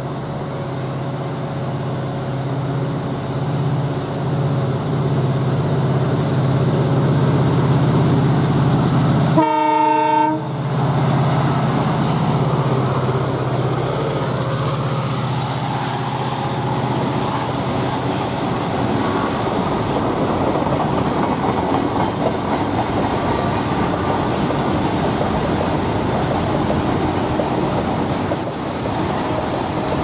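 WDG4 EMD diesel-electric freight locomotive, with its two-stroke diesel engine, running with a steady hum as it approaches and gives one horn blast about a second long, about ten seconds in. Then the freight wagons roll past with a continuous clickety-clack of wheels over the rail joints, and a faint wheel squeal near the end.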